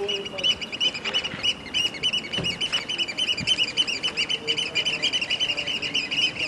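Rapid, continuous high chirping of small birds, several short calls a second, over a noisy outdoor haze.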